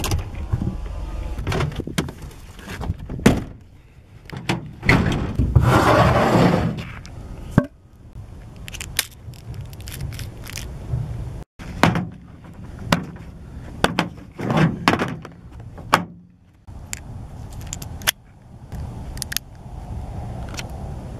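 A series of irregular knocks and thumps, with a longer rustling, scraping burst about five to seven seconds in.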